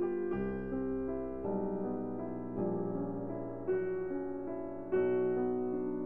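Background music: a gentle piano melody, one note or chord after another at an unhurried pace, with a sustained bass underneath.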